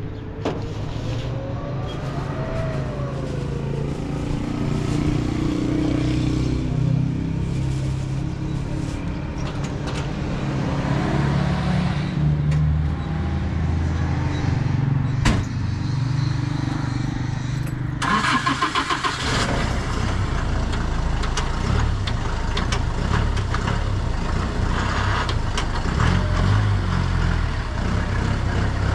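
A vehicle engine running steadily; about two-thirds of the way through, a pickup truck's engine is cranked by its starter for about a second, catches, and settles into a steady idle.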